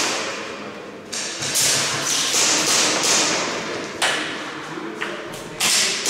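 Airsoft guns firing a string of single shots at uneven intervals, each sharp crack followed by a long echo off the hard walls of a large room.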